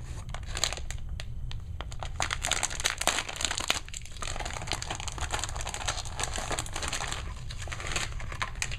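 Crinkling and crackling of HeroClix booster-pack packaging, a foil wrapper and clear plastic figure clamshells, being handled and opened, with a brief lull about four seconds in.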